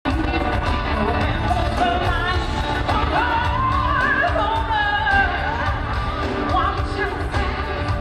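Live pop performance: a woman sings a high, wavering melody into a handheld microphone over a band with drums and bass.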